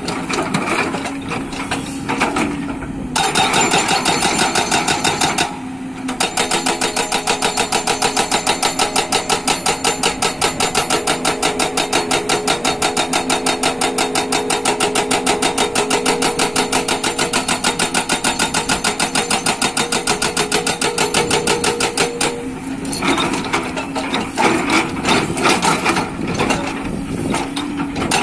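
Hydraulic rock breaker on a JCB tracked excavator hammering rock in fast, even blows over the steady hum of the excavator's diesel engine. The blows pause or stutter briefly about five seconds in and again a few seconds before the end.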